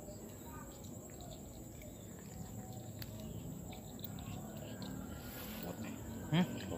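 Steady high-pitched insect drone, crickets, with faint low chatter under it; a short loud voice breaks in near the end.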